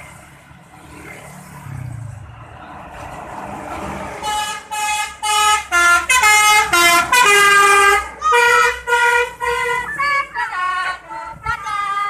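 Bus telolet horn: an Indonesian bus's multi-tone musical horn playing a quick tune of short blasts at changing pitches, after the rising rush of the bus coming closer.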